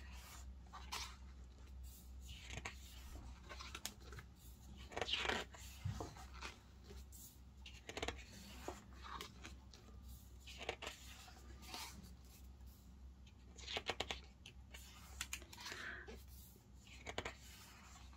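Pages of a large photobook being turned by hand: a series of short papery swishes and rustles, one every one to three seconds.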